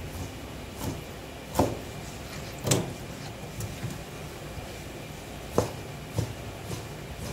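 Knife chopping through a sea cucumber onto a plastic cutting board: a few separate, irregular knocks with pauses between, over a steady low hum.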